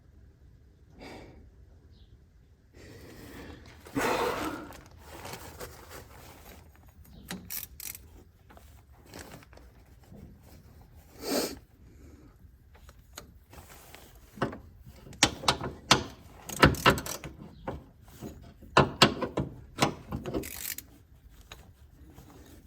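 Metal hand tools clinking and knocking against a stuck fuel fitting while it is being worked with a wrench, with a rustling burst about four seconds in and a run of sharp, loud clanks in the second half.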